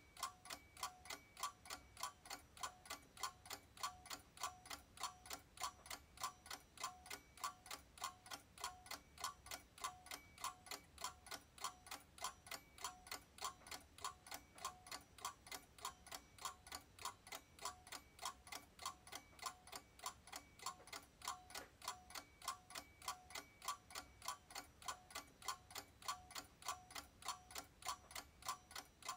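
A clock ticking with steady, evenly spaced ticks that go on without a break.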